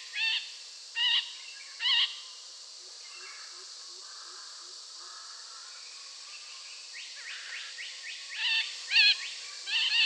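Long-tailed parakeet (Andaman subspecies) giving short, wavering calls: three about a second apart near the start and three more near the end. A faint run of about six low notes comes in between.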